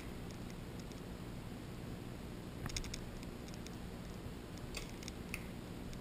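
Faint outdoor ambience: a steady low rumble and a faint steady high tone, with a few short, faint clicks a little under three seconds in and again near the end.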